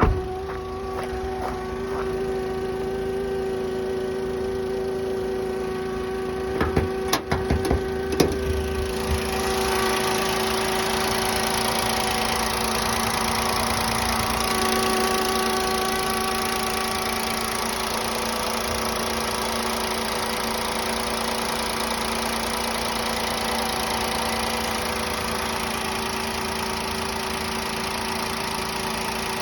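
Toyota Raize engine idling just after starting, with a steady whining hum running through it: an abnormal noise that is loudest near the battery and that the owner links to a CVT valve. A few sharp clicks come about seven seconds in, after which the running noise grows fuller.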